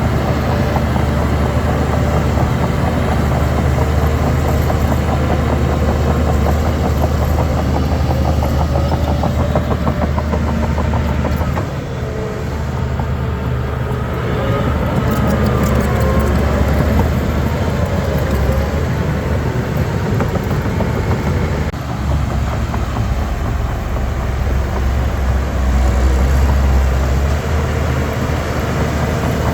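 Heavy diesel engine of a Shantui DH17 C3 crawler bulldozer running steadily, its load rising and falling, with brief squealing glides near the middle.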